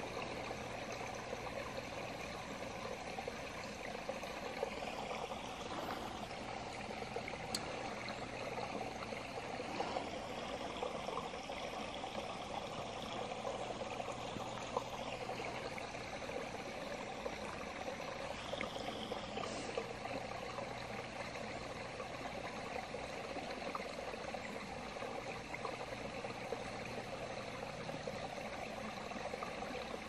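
Small woodland stream running and trickling steadily.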